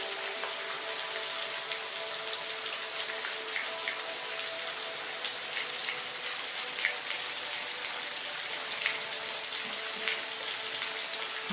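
Steady rain hiss with scattered individual drops ticking. Faint held tones of soft background music sound through the first few seconds and fade away.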